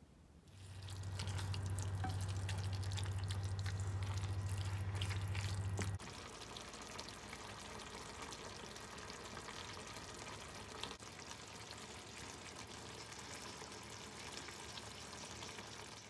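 Pork belly, bean sprouts and spicy red sauce sizzling and bubbling in a cast-iron pot, with many small crackles. A steady low hum under it for the first six seconds stops abruptly, leaving the sizzle quieter.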